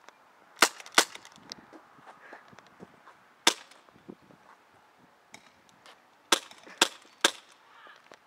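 Airsoft pistol firing six sharp shots at uneven intervals: two close together near the start, one about three and a half seconds in, and three in quick succession near the end.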